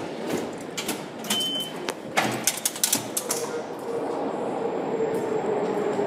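Subway turnstile clunking as it turns at the start, followed by a quick run of sharp metallic clicks, then a steady hum that cuts off near the end.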